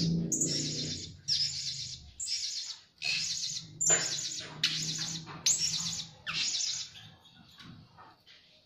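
Blue-crowned hanging parrots (serindit) calling: a string of about eight short, high-pitched calls, roughly one a second, dying away near the end.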